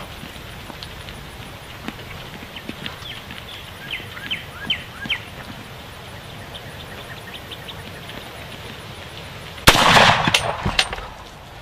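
A few faint bird chirps in the middle, then near the end a single sudden, very loud rifle shot at feral hogs at a feeder, its noise trailing off over about a second.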